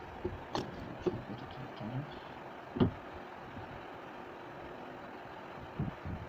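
A few light knocks and taps as a pencil and set square are handled on a drawing board, with one sharper knock about three seconds in, over a steady background hiss.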